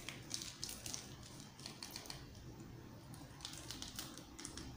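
Faint clicking of a TV remote control's buttons being pressed, in two short runs of quick presses.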